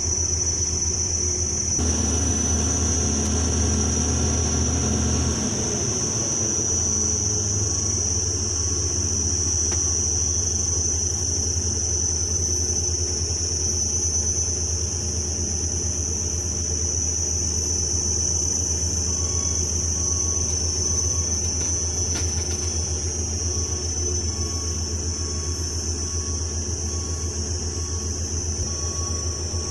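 Heavy diesel engine of an excavator running, its low drone working harder for a few seconds near the start, then settling. A steady high-pitched whine runs over it throughout.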